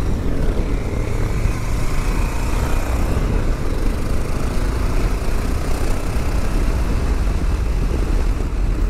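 Honda XL 600 single-cylinder enduro engine running steadily under way, mixed with a heavy rush of wind on the helmet microphone.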